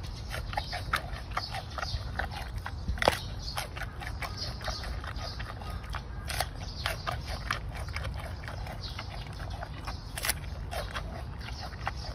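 Giant panda biting and chewing a fresh bamboo shoot, making a run of wet, crisp crunches at an uneven pace, a few louder snaps among them, over a steady low background rumble.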